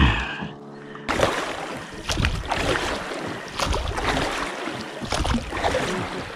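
A thump and a steady hum for the first second, then oars of an inflatable rowing boat dipping and splashing through the water, a stroke roughly every second, with water rushing along the hull.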